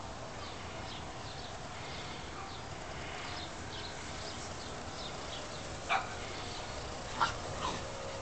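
Young puppy giving three short, high yips in the last few seconds, the last two close together.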